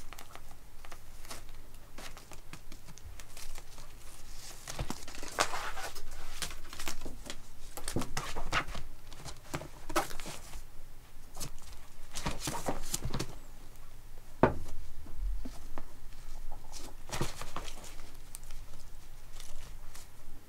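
A cat's claws scratching and raking a fabric cushion while she grapples and bites a ribbon toy, in irregular bursts of scratching and rustling with small clicks. One sharp knock about two-thirds of the way through.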